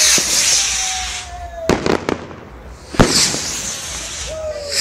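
Fireworks going off: sharp bangs of bursting shells, a close pair about one and a half to two seconds in and another about three seconds in, with hissing and crackling between them.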